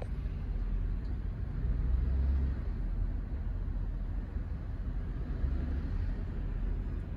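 A low, steady outdoor rumble that swells and eases a little, with no distinct events.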